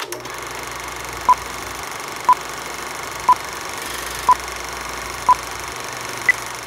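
A countdown of short electronic beeps: five at one pitch, a second apart, then a sixth at a higher pitch, over a steady hiss.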